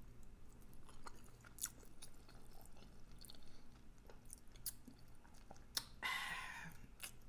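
Faint close-up chewing of a mouthful of salmon and grits, with small wet clicks and lip smacks. A brief breathy sound comes about six seconds in.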